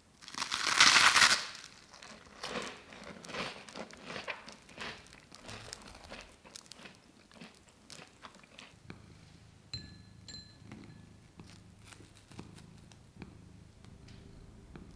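Crispy deep-fried shrimp toast being broken apart: one loud crunching crackle of the fried bread crust about a second in, then smaller crackles that fade over the next few seconds.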